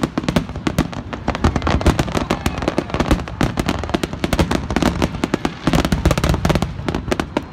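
Aerial fireworks display: a rapid, continuous barrage of sharp shell-burst bangs and crackles, many a second, with no pause.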